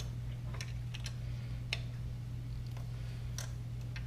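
A few light metallic clicks, about a second apart, as a wrench tightens the clamp bolt on a motorcycle highway foot peg, over a steady low hum.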